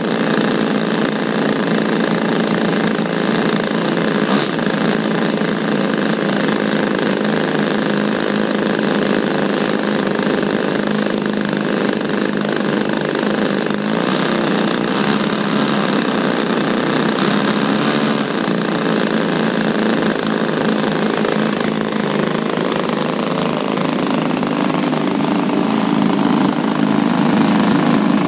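Twin XYZ 20cc two-stroke gas engines of a model aircraft running together on the ground, propellers turning, on their second run. The engine note is steady and picks up a little speed near the end.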